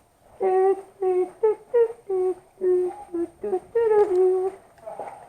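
A person humming a tune in about nine short notes, mostly on one pitch with a few slightly higher, the last held longer.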